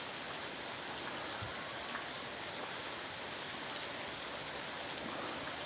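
Steady heavy tropical rain falling and pattering on surfaces.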